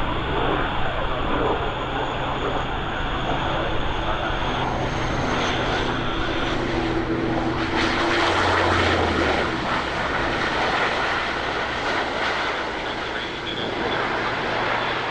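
De Havilland Canada Dash 8 Q400 turboprop landing, its engines and propellers running with a steady drone that is loudest about eight seconds in and then eases slightly.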